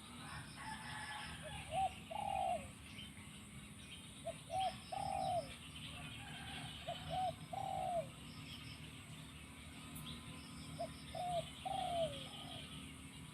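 Spotted dove cooing: four phrases, each two short coos followed by a longer, falling coo, spaced a few seconds apart. Faint, rapid high chirping runs in the background.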